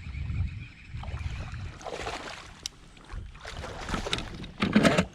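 Hooked bass splashing at the water's surface beside a kayak in three short rushes, the last and loudest near the end, with a low rumble of handling and wind on the microphone before them.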